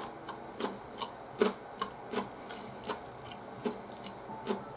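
Close-up chewing and mouth sounds of a man eating cold Chinese noodles with vegetables: a string of short, irregular clicks, about one every half second.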